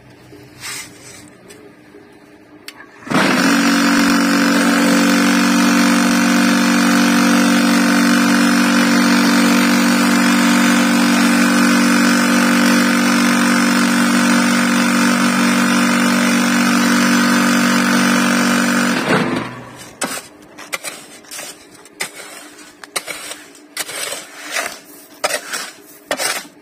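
Electric vibrator motor on a cinder-block making machine running with a steady, loud hum, shaking the mould to compact the concrete mix. It starts abruptly about three seconds in and cuts off after about sixteen seconds. Afterwards a tool scrapes and knocks against the mix in the mould.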